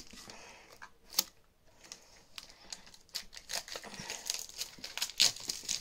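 Trading-card tin's wrapping being torn and crinkled open by hand: irregular crackles and sharp snaps, getting busier in the second half. The packaging is hard to get into.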